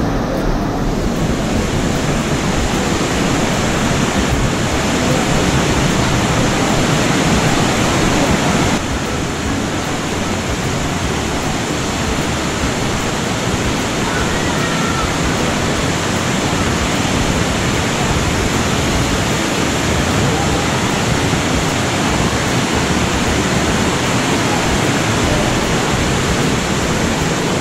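Rushing water, a loud steady roar without break, changing slightly in character about nine seconds in.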